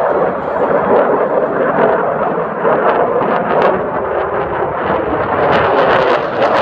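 F-22 Raptor's twin Pratt & Whitney F119 turbofans passing overhead: a loud, steady rushing jet noise, with a ragged crackle that grows sharper and denser toward the end as the jet comes closer.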